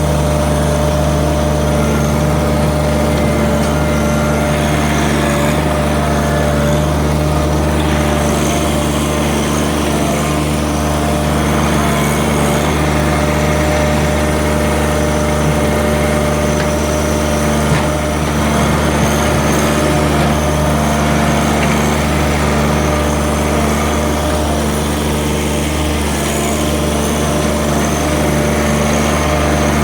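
John Deere 1-series sub-compact tractor's three-cylinder diesel engine running at a steady speed while working dirt with the loader and backhoe.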